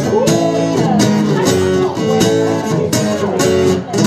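Guitar strummed in chords to close out a song, with a short break in the playing near the end.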